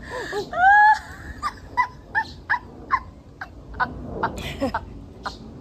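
A dog yipping and whimpering: short high yips about three a second, with a longer rising whine about a second in.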